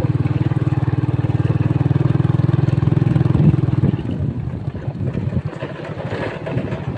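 Small motorcycle engine running steadily while the bike is ridden, then dropping in level about four seconds in.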